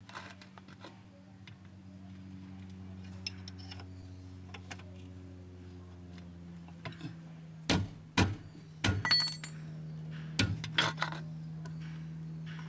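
Steel wrench clinking against a brake caliper bolt as it is worked, with a cluster of sharp metallic clicks and clinks in the second half, some ringing briefly, over a steady low hum.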